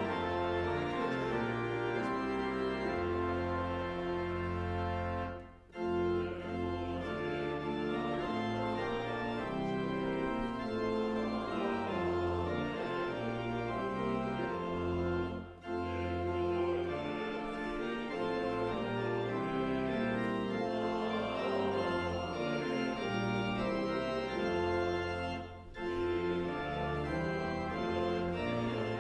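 Church organ playing sustained chords in a slow, hymn-like progression, with a short break between phrases about every ten seconds.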